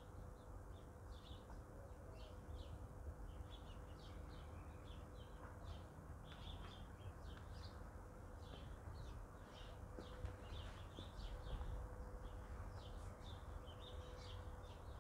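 Small birds chirping, many short high chirps coming thick and fast throughout, over a faint steady hum.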